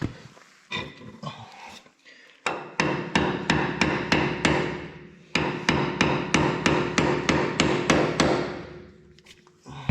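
Hammer blows on steel, a few scattered knocks and then a long rapid series of about three to four strikes a second with a ringing tone, driving a stuck shaft out of a Massey Ferguson 35 tractor.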